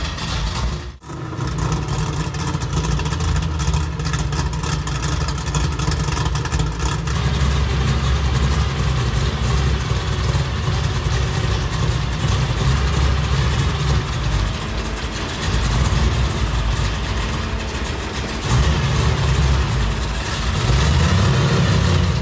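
A 1969 Chevrolet Camaro's 427 cubic inch big-block V8 running at idle, with a few louder revs near the end. The sound cuts out briefly about a second in.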